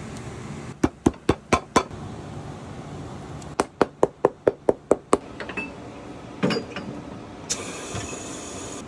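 Cobbler's hammer tapping a new rubber sole guard onto a boot sole: five quick blows, then a faster run of about eight, about four a second. Then a single thump and, near the end, a hiss of air about a second long as the sole press closes on the boot.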